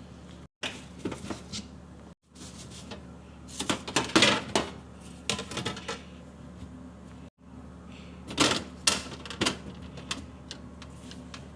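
Irregular clatter of plastic containers and items being handled, knocked together and set down while a refrigerator is organized. The clicks and knocks come in bunches, busiest about four seconds in and again around nine seconds, over a steady low hum.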